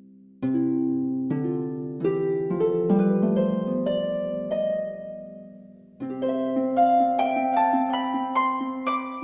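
Gentle background music of plucked, harp-like notes in rising runs: one phrase begins about half a second in, fades, and a second begins about six seconds in.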